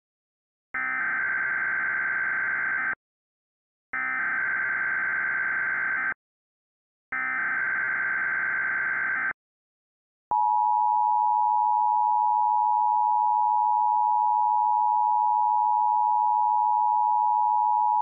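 Emergency Alert System SAME header: three bursts of digital data tones, each about two seconds long. About ten seconds in, the steady two-tone EAS attention signal (853 and 960 Hz sounding together) starts and holds without a break. Together they open a civil emergency alert.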